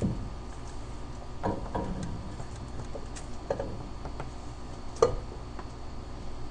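Scattered light clicks and knocks of metal engine parts being handled and set down on a V8 engine during cylinder head installation, the sharpest knock about five seconds in.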